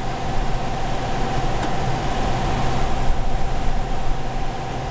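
Denso MovinCool Classic 10 portable air conditioner (10,000 BTU) running: a steady rush of air from its blower over a low hum, with a faint steady mid-pitched tone above it.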